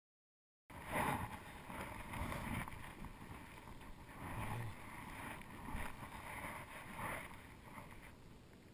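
Shallow water sloshing and wind rushing over an action-camera microphone, swelling and easing every second or so. The sound cuts in abruptly under a second in, after dead silence.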